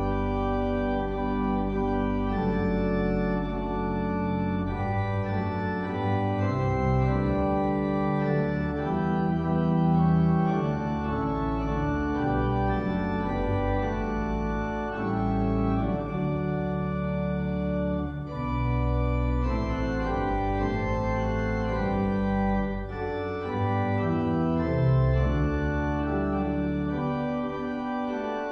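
Hybrid pipe organ (Viscount Unico 800 digital organ joined to 1970 Hillgreen-Lane pipes) playing full sustained chords over a deep pedal bass, the chords changing every second or two. Its digital Great, Swell and Pedal voices are at an early stage of voicing.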